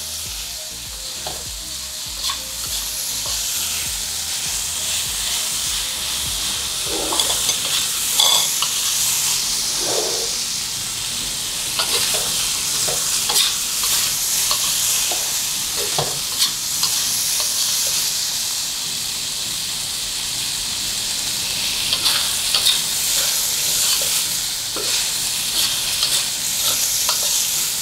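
Chopped garlic sizzling steadily as it fries in hot oil, with a spatula clicking and scraping against the pan every so often as it is stirred. The garlic is turning golden and fragrant.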